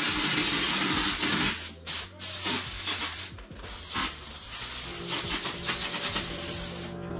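Drywall texture hopper gun spraying texture with compressed air: a steady hiss that breaks off briefly about two seconds in and again about three and a half seconds in as the trigger is let go, and stops just before the end.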